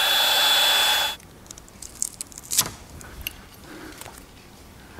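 Milwaukee M18 compact cordless heat gun running, a steady fan rush with a thin high whine, switched off about a second in. A few light clicks and taps of handling follow.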